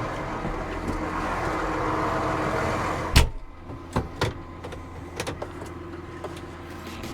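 Tractor engine running with a steady hum, then a loud clunk about three seconds in, after which the sound drops much quieter, with a few light clicks.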